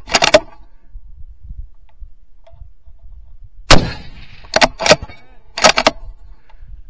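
A single very loud rifle shot a little under four seconds in, ringing out briefly. It is followed by a quick run of sharp metallic clacks as the rifle's action is worked. A similar cluster of clacks comes right at the start.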